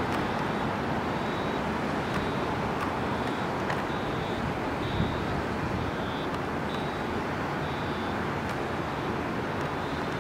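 New York City subway cars rolling slowly through a rail yard: a steady rumble of wheels on track, with a faint high-pitched squeal that comes and goes and a few light ticks.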